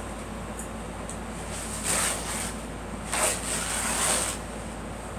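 A girl coughing: two rough, breathy coughing bouts, a short one about two seconds in and a longer one a second later.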